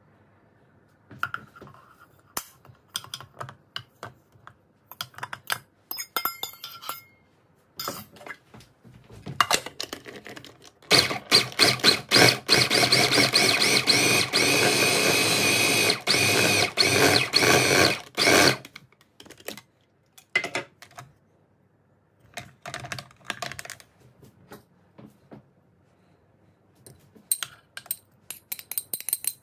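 Electric food processor chopping cubes of seasoned meat into sausage mince: the motor and blade run loudly and steadily for about seven seconds in the middle. Before and after it come scattered clicks and knocks as the bowl and lid are handled.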